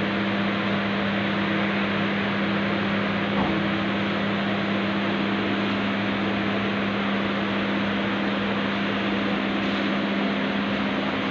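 Güntner two-fan evaporator unit in a walk-in freezer running: a steady fan whoosh over a constant low hum, the freezer operating at minus 20. A faint knock about three and a half seconds in.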